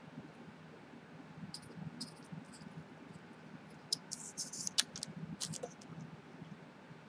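Scissors snipping and a plastic bag crinkling under the hands: a scatter of small clicks and rustles, busiest around the middle, with one sharper click just under five seconds in.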